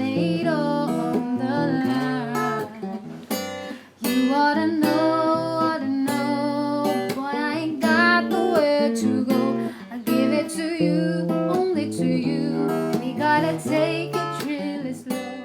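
Music: a slow ballad played by a band, strummed acoustic guitar over a bass line with melodic lines above, with a brief break about four seconds in.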